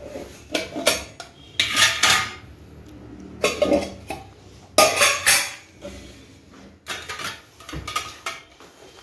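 Stainless steel containers and lids clinking and clattering against one another as they are handled and lifted out of a kitchen drawer: a run of sharp metal clinks, loudest about two and five seconds in.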